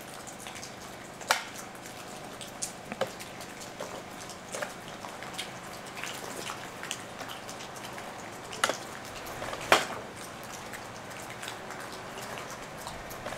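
Light clicks and taps at irregular moments, a few of them sharper and louder, as the saw chain and guide bar of a STIHL MS 241 chainsaw are handled and checked on a wooden table, over a steady faint hiss.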